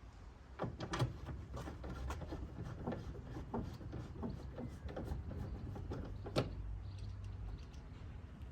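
Irregular clicks and knocks from hand work with a screwdriver on a van's rear light cluster, with a sharper knock about a second in and another about six and a half seconds in. A steady low rumble runs underneath.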